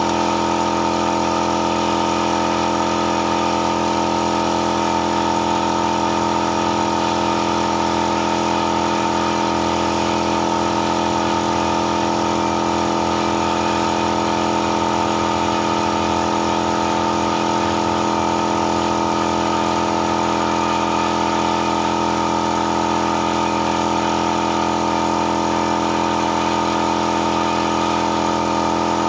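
A motor or small engine running steadily, a constant even hum that does not change.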